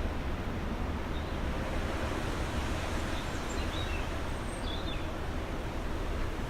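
Steady rushing wind noise, heaviest in the low end, with a few faint high bird chirps about three to five seconds in.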